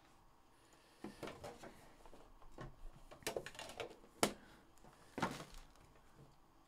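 A trading-card box being handled and opened by hand: scattered light knocks, taps and rubbing of the box and its lid, with one sharp click about four seconds in.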